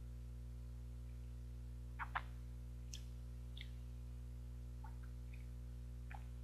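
Faint wet lip smacks and sucking clicks from eating an injeolmi ice cream bar. Two come close together about two seconds in and are the loudest, and a few softer ones follow. A steady low hum runs underneath.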